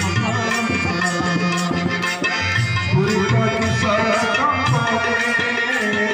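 Live folk-theatre music: hand drums struck in a steady run of strokes under a sustained melodic instrument, accompanying a masked dance.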